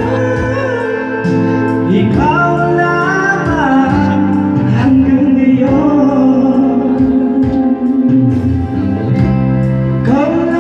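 Karaoke: a live vocal sung into a microphone over a loud backing track, with a sustained, sliding melody.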